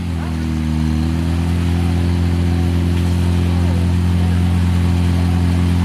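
Portable fire-pump engine running hard at a steady high speed, its pitch dropping slightly just after the start and then holding steady. Faint shouting from people can be heard over it.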